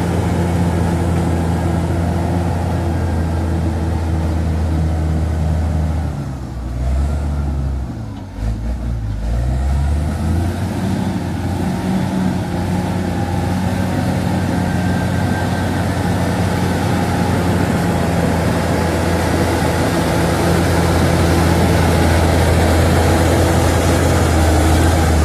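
Crawler bulldozer's diesel engine running steadily under load. About six seconds in the engine note drops and wavers for a few seconds before coming back up, then it holds steady and grows a little louder near the end.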